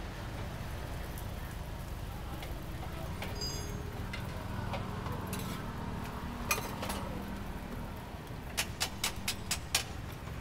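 Roti cooking on a flat steel griddle, with metal spatulas clinking as a roti is flipped, over a steady low background hum. Near the end comes a quick run of about six sharp slaps as a ball of roti dough is stretched by hand.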